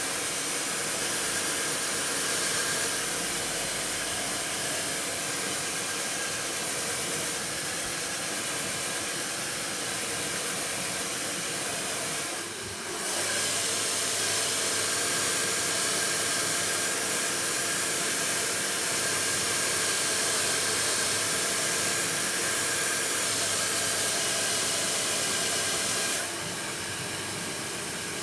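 Lukso Mini Zero hair dryer blowing steadily, a rush of air with a faint steady whine. The sound dips briefly about halfway through and drops a little in level near the end.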